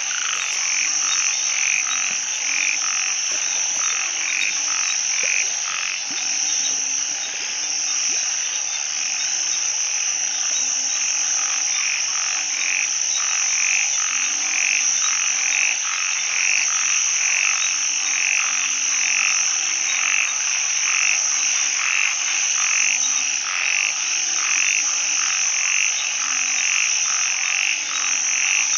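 A chorus of frogs and narrow-mouthed frogs (อึ่ง) calling after rain: many overlapping calls repeating about twice a second, with short low croaks scattered beneath. A steady high-pitched drone runs underneath.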